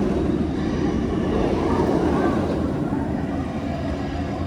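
Nemesis inverted steel roller coaster train running along its track with a steady low rumble that fades slightly.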